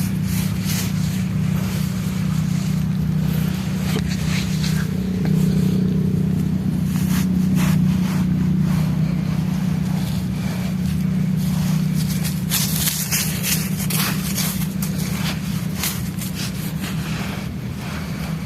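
Dry material crunching and crumbling in irregular short crackles, densest about two thirds of the way in, over a steady low hum.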